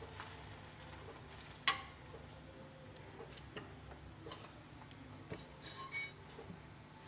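Steel spoon spreading ghee over a paratha on a hot tawa, with faint sizzling; a sharp metal clink about a second and a half in, then a few light clicks and a short rattle near the end.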